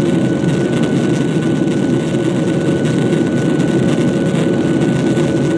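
Steady roar of a jet airliner's engines and airflow heard inside the passenger cabin, with a faint steady whine above it.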